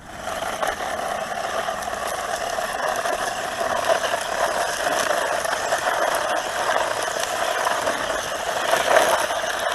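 PKX Z002A 1:16 scale four-wheel-drive RC truck's electric motor and drivetrain whining steadily as the truck spins donuts, the pitch holding fairly even throughout.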